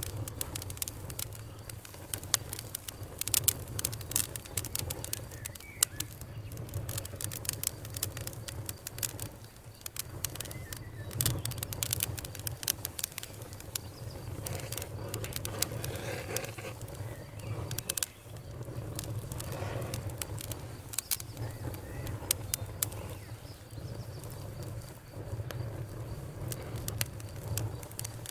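Wood fire crackling, with frequent sharp irregular pops and snaps over a steady low rumble. Faint bird calls come through now and then.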